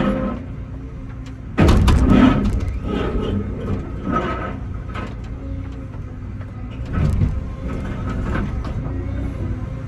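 Excavator engine running steadily while concrete is broken up, with a sudden loud burst of crunching and scraping about a second and a half in and a smaller one near seven seconds.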